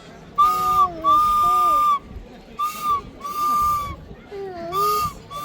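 A whistle blown in about six blasts, short and longer, each a steady high tone with a breathy hiss and, under some, lower wavering tones.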